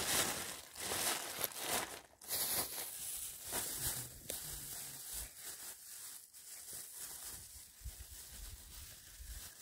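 Irregular rustling and crinkling, with scattered short crackles.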